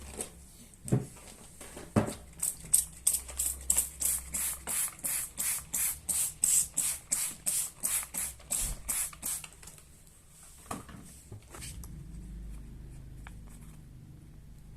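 Sandpaper rubbed back and forth by hand on a plastic headlight lens: a run of short hissing strokes, about three a second, lasting some seven seconds, with a couple of knocks just before it starts.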